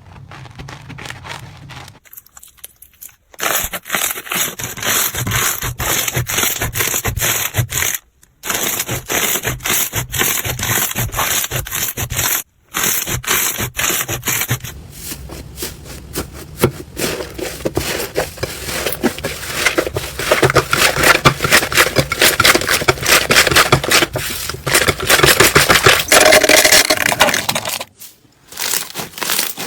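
Slime being pressed, squeezed and worked by hand, giving a dense crackling and popping, across several short clips that cut off abruptly and restart.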